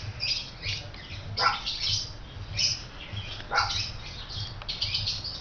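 Pet birds chirping and calling over and over, with a few sharp calls that fall steeply in pitch.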